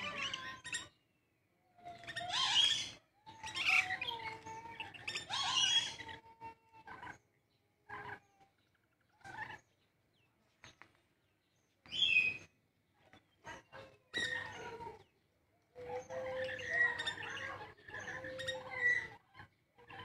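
Parrots calling: repeated harsh screeches and chirps. Some calls are short single notes and some are bursts of a second to a few seconds, with short quiet gaps between them.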